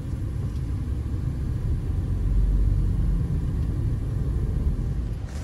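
Steady low rumble of a car's engine and road noise heard inside the cab while driving in slow traffic, swelling slightly about halfway through.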